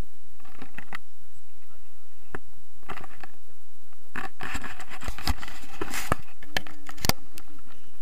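Handling noise from paragliding harnesses: straps rustling and scraping, and buckles clicking as they are unfastened. A few separate clicks come early, then a busier run of scrapes and clicks from about halfway through.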